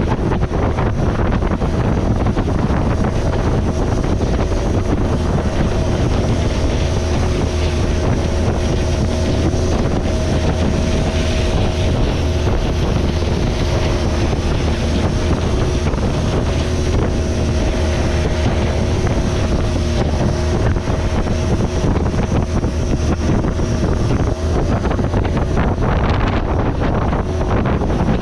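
Thai long-tail boat engine running at steady speed, with wind buffeting the microphone.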